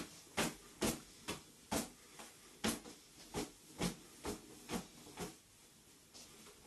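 A barefoot person practising rapid karate kicks on a wooden floor: about a dozen sharp slaps, roughly two a second, that stop about five seconds in.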